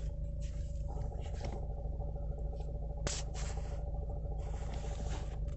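Car engine idling with the clutch engaged, with a light rattle (Klappern) running along with it, a rattle that goes away when the clutch pedal is pressed. A brief click about three seconds in.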